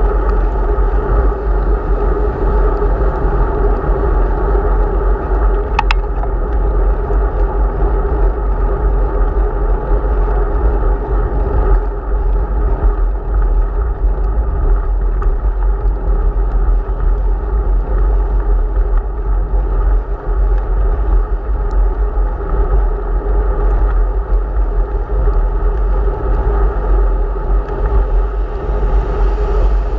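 Steady rumbling wind and tyre noise on the microphone of a camera riding on a bicycle along a wet road, with a single sharp click about six seconds in.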